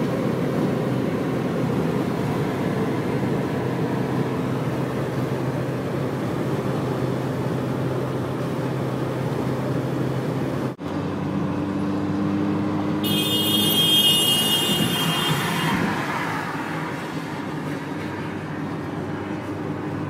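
Road traffic noise with engines running steadily; the sound changes abruptly about eleven seconds in, and a high-pitched ringing sound lasting about three seconds stands out soon after.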